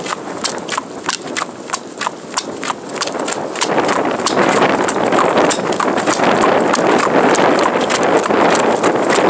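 A horse's hooves trotting on an asphalt road, a steady clip-clop of about three to four beats a second. From about four seconds in, a loud rushing noise rises and partly covers the hoofbeats.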